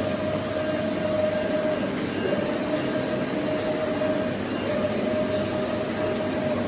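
Massey MX-2713 UV flatbed printer running: a steady mechanical hum with a whine that runs about two seconds at a time and breaks off briefly between stretches, in step with the print carriage's back-and-forth passes.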